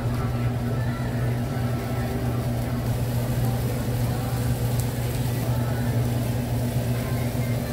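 A steady low machine hum, even in level, with no separate knocks or clicks standing out.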